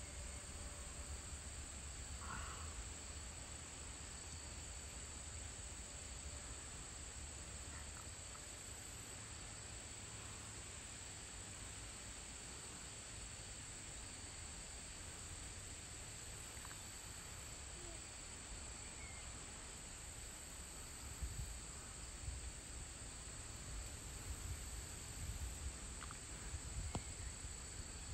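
Crickets and other insects singing in a steady, high-pitched evening chorus, under a low rumble that turns uneven in the second half.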